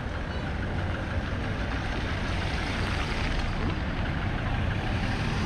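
Engines of a car and a minibus moving slowly at close range on a dirt street: a steady low rumble.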